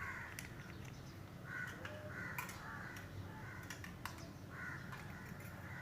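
Faint bird calls, repeated five or six times, with a few light clicks in between.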